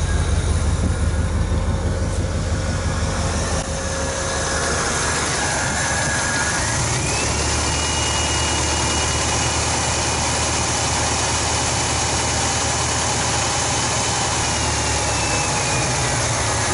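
1986 Oldsmobile Cutlass Supreme's carbureted engine running on its own after five years parked, now fed by its mechanical fuel pump instead of starter fluid. About seven seconds in it speeds up, with a whine rising in pitch, holds there, and settles back down near the end.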